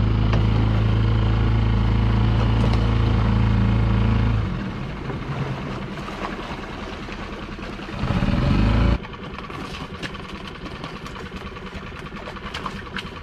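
Small boat's outboard engine running steadily with a low hum. It drops in level about four seconds in, swells briefly, then stops abruptly about nine seconds in, leaving a quieter background with a few clicks and knocks.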